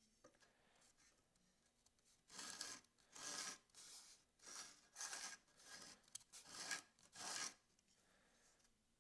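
Faint series of about eight short rasping strokes, a high-carbon machete's bevel scratched back and forth against the grinder's abrasive belt: a scratch test of the Sharpie-marked edge to check that the new angle reaches the apex.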